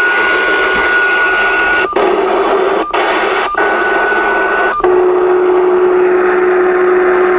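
Ten-meter radio's speaker putting out loud receiver static with a steady high whistle. Four short clicks break it, and after the last one the whistle drops to a lower steady tone.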